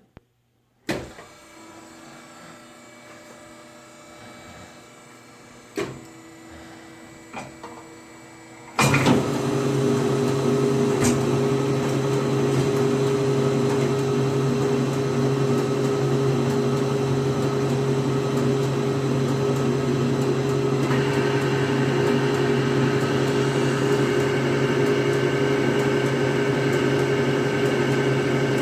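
Automatic milking machine switched on about nine seconds in: its electric vacuum pump starts and runs with a loud, steady hum, and a higher whine joins about twenty seconds in. Before it starts there is only a faint hum and a couple of knocks.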